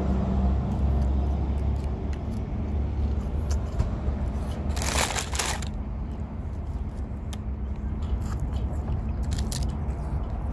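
A person chewing McDonald's fries and a Spicy McNugget close to the microphone: scattered small crunching clicks over a steady low rumble, with one louder rustling burst about five seconds in.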